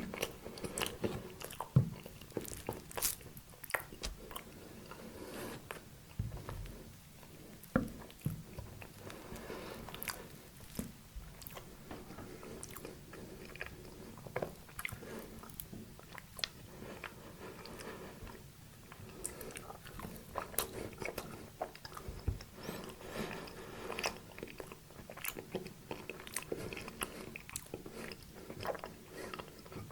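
Close-up eating sounds: bites and chewing of fruit cake and a cocoa-coated quark bar, with many irregular crisp crunches and wet mouth clicks.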